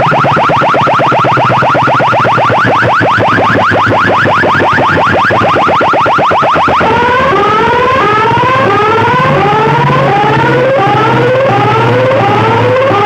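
Electronic siren effect played very loud through a DJ sound system: rapid rising sweeps, several a second, then about seven seconds in a switch to slower rising whoops, about one a second.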